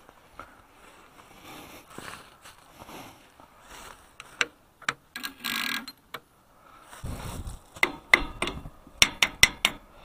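Farmall 400 failing to start: scattered sharp clicks and mechanical rattles with no engine cranking, then a quick run of clicks near the end. The starter is not turning the engine over, which the owner takes for a failed starter or a bad connection.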